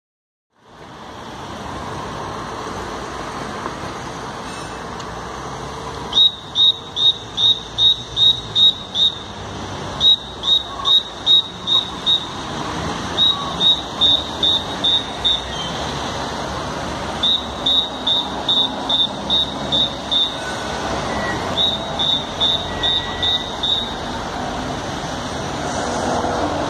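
Busy city road traffic running steadily, with a high electronic beeping in runs of six to eight quick beeps, about three a second, repeated five times. Near the end a tram begins to pass and the traffic noise grows a little louder.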